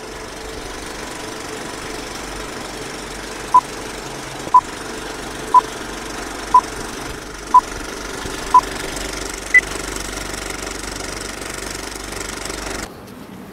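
Film projector running with a steady mechanical clatter under a countdown leader's beeps: six short beeps of one pitch about a second apart, then a seventh, higher beep. The projector noise stops suddenly near the end.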